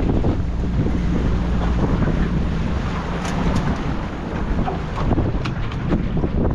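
1957 Cadillac motorboat running steadily underway, its engine a constant low drone under heavy wind buffeting on the microphone. A few sharp splashes of water come in the second half.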